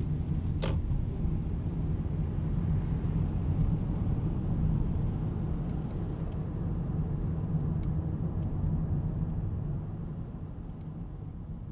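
Car driving, a steady low rumble of engine and road noise, fading out near the end.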